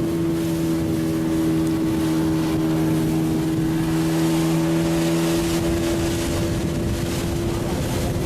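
A fishing boat's engine running steadily at a constant speed, a droning hum over wind and water noise.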